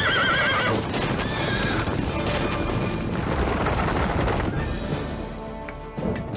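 A horse whinnies with a shaking, wavering cry at the start, and a fainter second whinny follows about a second later, over a dense din of horses' hooves and film score music. After about four and a half seconds the din thins out and the music carries on alone.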